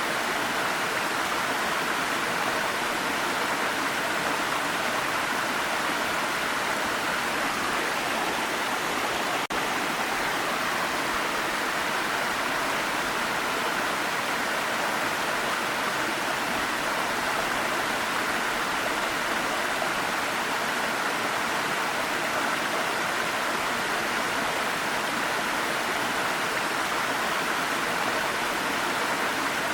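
Waterfall: a steady, even rush of falling water, with a brief dip in level about nine and a half seconds in.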